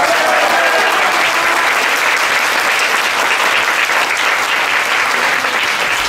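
Audience applauding steadily, a dense, sustained clapping.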